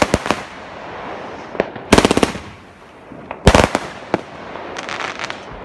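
Fireworks and firecrackers going off: sharp bangs, with two rapid strings of bangs about two and three and a half seconds in and a short crackle near the end, over a steady din of more distant fireworks.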